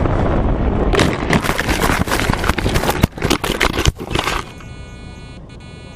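Wind rushing over the microphone of a camera carried on a foam RC plane, then about a second in a dense run of crackling, scraping knocks that stops suddenly some three seconds later, leaving a faint steady hum.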